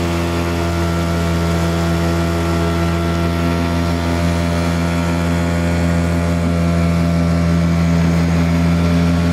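Small Yamaha 3 hp two-stroke outboard motor running steadily under way, its pitch holding constant.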